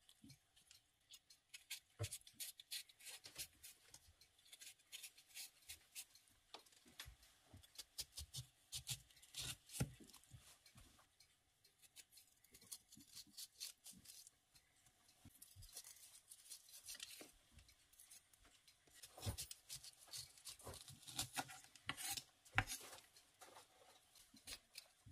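Wide-bladed kitchen knife peeling and scraping a yellow cucumber: a long run of faint, quick scraping strokes, with the occasional sharper knock of the blade on the wooden cutting board.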